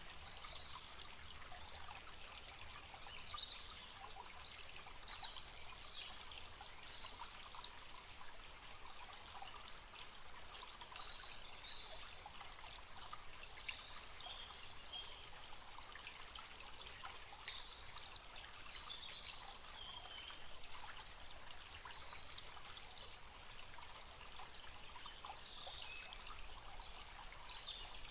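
Small forest stream trickling and babbling steadily, with short bird chirps scattered over it now and then.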